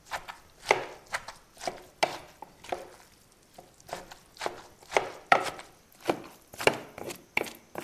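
A pestle and spoon pound and toss shredded green papaya in a wooden mortar, making irregular dull knocks, about two or three a second, as the papaya salad is bruised and mixed.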